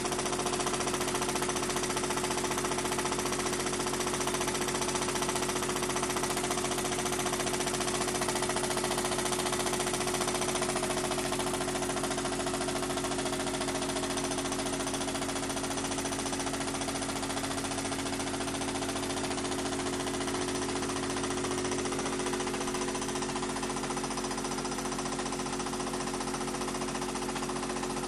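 Pre-war Meccano toy steam engine with an oscillating cylinder, running fast and steadily on compressed air: a rapid, even mechanical chatter over a steady hum.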